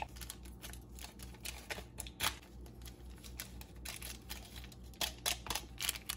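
Instant-noodle seasoning packets being shaken and tapped out over a pot: irregular small clicks and crinkles of the packets, over a faint steady low hum.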